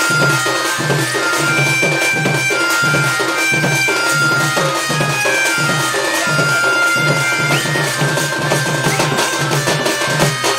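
Sambalpuri folk dance accompaniment: a dhol beats a steady rhythm of about two strokes a second under a reedy melody of held notes on an electronic keyboard.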